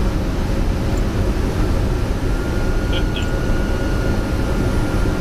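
Steady, loud rumble and roar inside a Boeing 747-200 cockpit on short final: airflow over the nose and the engines at approach power. A faint steady high tone comes in about a second and a half in, and a couple of brief high chirps sound about three seconds in.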